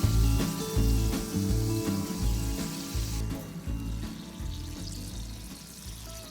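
Food sizzling in a small frying pan over background music; the sizzle stops about three seconds in while the music fades down.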